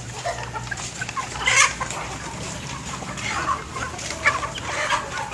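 Chickens clucking: a flock of hens giving many short, overlapping calls, the loudest about a second and a half in.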